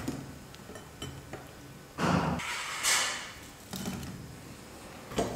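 Perforated metal skimmer knocking and scraping against a pot as fried gulab jamun balls are tipped into warm sugar syrup, with soft splashes. A few separate clatters, the loudest about two to three seconds in.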